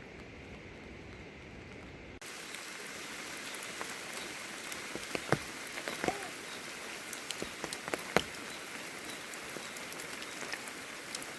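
Heavy rain falling: a steady hiss with scattered sharp drop impacts, the loudest about five, six and eight seconds in. For the first two seconds there is a duller, lower steady noise, which cuts off abruptly into the brighter rain.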